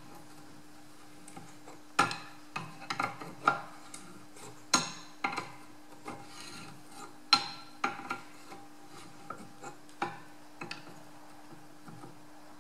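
Adjustable spanner clinking and knocking on the bearing nut and steel housing of a David Brown Implematic steering box as the nut is worked down onto the column's ball bearings. It is an irregular run of sharp metallic clicks with short ringing, the loudest a second or two apart.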